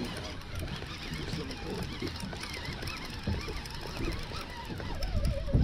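Baitcasting fishing reel being cranked steadily, its gears and line winding with a light whirr, over a low rumble.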